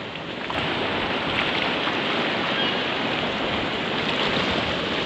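Small sea waves washing in among shoreline rocks: a steady rushing hiss of surf that swells a little about half a second in.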